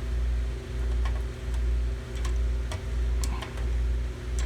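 A steady low machinery hum that swells and fades about every 0.7 s, with scattered light ticks from a walk-in freezer's mechanical temperature control dial being turned all the way down. The control still will not close: it has failed open.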